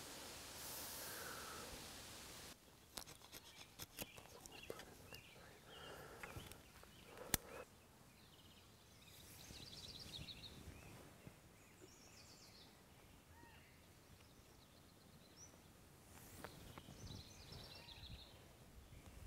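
Quiet outdoor ambience with scattered small clicks and rustles from paracord being wrapped and pulled tight on a wooden rod, and one sharper click about seven seconds in. Birds chirp now and then.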